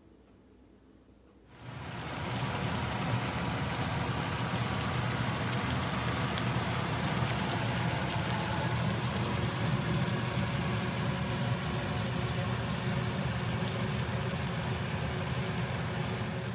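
Bulgogi sizzling and bubbling in its marinade in frying pans on an induction hob: a steady crackling hiss that starts suddenly about a second and a half in, over a low steady hum.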